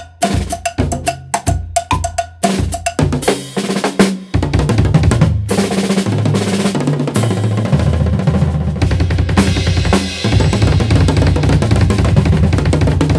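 Drum kit solo: a few seconds of separate, accented drum hits, then from about four seconds in a dense, fast barrage of double-pedal bass drum strokes under toms, snare and crashing Paiste cymbals.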